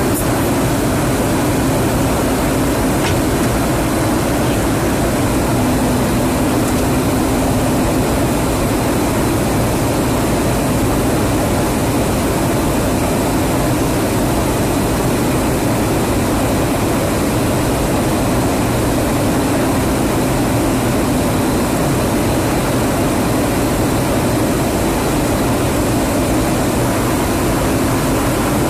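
Steady in-flight drone of aircraft engines and slipstream, heard from inside a KC-135 Stratotanker, with a faint low hum running under it.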